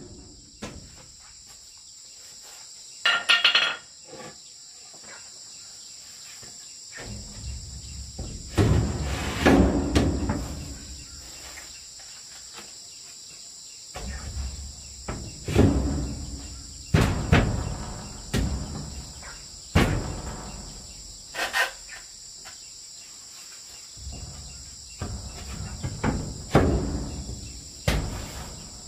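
Wooden boards knocked and thudded against a timber wall frame as they are handled and fitted into place, a dozen or so sharp knocks with scraping between them. A steady high insect drone runs underneath.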